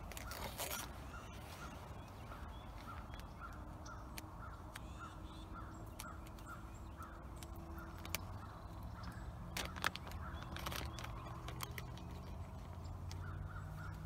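Faint bird calls: a steady series of short notes, about two or three a second, over a low background hum.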